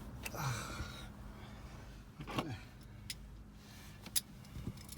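Scattered clicks and handling noise from work on a van's live 12 V battery wiring, with one sharp snap about four seconds in: the wiring is sparking.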